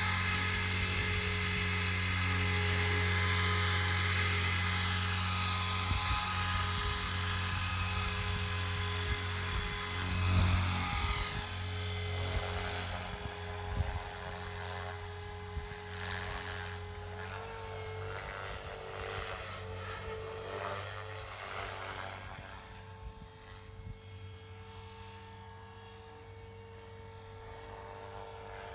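Radio-controlled helicopter flying, its rotor and high motor whine running steadily and slowly growing fainter.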